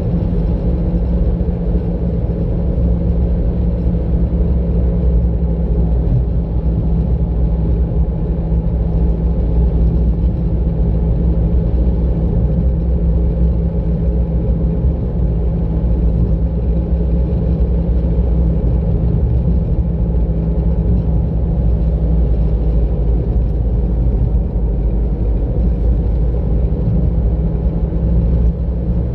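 Car driving at steady speed, heard from inside the cabin: a steady low rumble of engine and tyres on the road.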